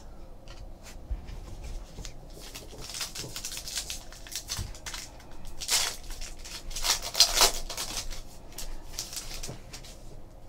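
Baseball-card pack wrapper being torn open and crinkled by hand, then the cards pulled out and handled: an irregular run of rustling and tearing sounds, loudest about six and seven seconds in.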